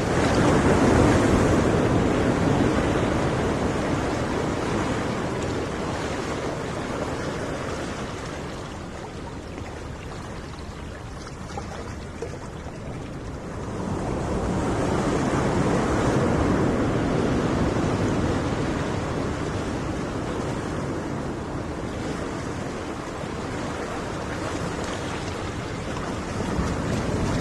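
Ocean surf: a steady rushing wash of waves that swells and ebbs slowly. It is loud at first, dies back, surges again about halfway through, and builds once more near the end.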